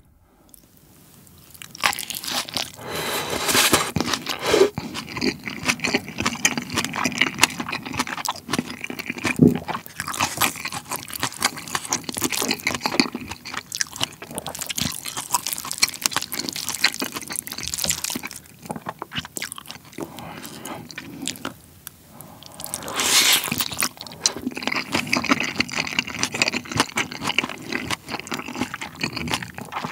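Close-miked chewing of a mouthful of beef tartare bibimbap, with the raw beef and crisp vegetables crunching irregularly. It pauses briefly about three-quarters of the way through, then starts again louder.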